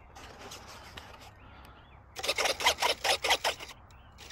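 Micro servos (4.3-gram units) in an RC plane's wing and tail whirring in a quick run of short strokes, about five or six a second, starting about halfway in, as the control surfaces are swung back and forth through their large throws.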